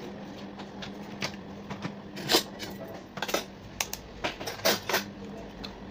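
Eggs and a ceramic bowl clinking and tapping as they are handled: a run of sharp clicks and knocks, the loudest about two seconds in and a quick cluster between three and five seconds. A steady low hum runs underneath.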